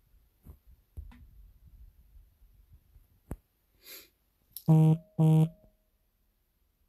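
Two short, loud buzzes about half a second apart, each a low steady tone, after a few faint clicks and rustles.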